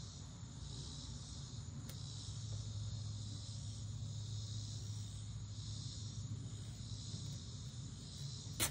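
Insects chirring steadily in the background, over a low hum, with one sharp click near the end.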